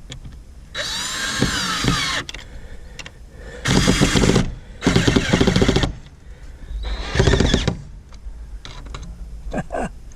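Power drill run in four short bursts. The first winds up and back down in pitch, the later ones are denser and rougher.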